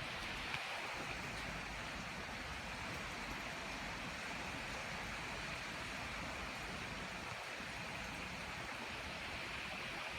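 Strong wind blowing, a steady rushing noise with uneven low rumbling.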